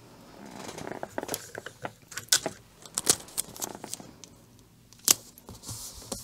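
Hands handling a long, thin cardboard box on a tabletop: scattered light taps, scrapes and rustles, with a sharper click about five seconds in.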